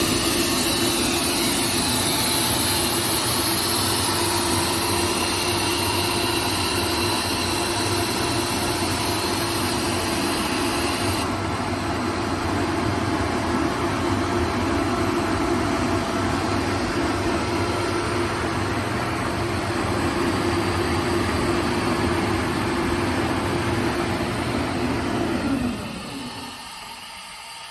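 ALUP SCK 21-08 15 kW screw air compressor running steadily under load with a constant hum. Near the end its tone slides down and the sound drops away as the compressor reaches its 8 bar cut-out pressure.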